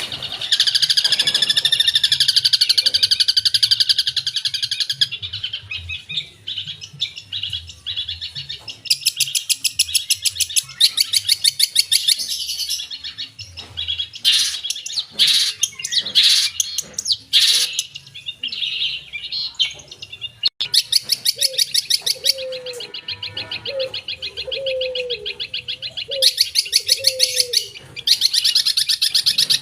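Long-tailed shrike (cendet) singing a loud, fast chattering song of rapid trills and quick phrases, the mimicked calls of other birds (isian) woven in, in bursts with short pauses. A lower series of repeated notes joins in during the second half.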